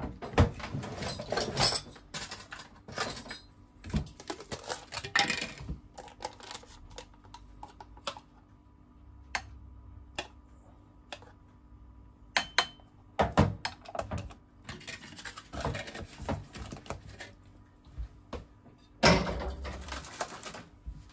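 Spoon tapping and scraping against a small bowl while yogurt is spooned out of a plastic pouch, with irregular clicks and clatters of kitchen things being handled and a louder rustle near the end.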